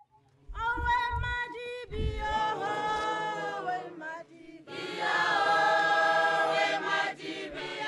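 Choral singing: several voices singing together, pausing briefly about four seconds in, then holding long chords.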